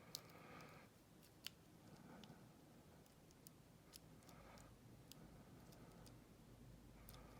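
Faint, irregular clicks of a lock pick and tension wrench working the pins of a Kryptonite padlock's six-pin brass cylinder, about eight sharp ticks spread over several seconds.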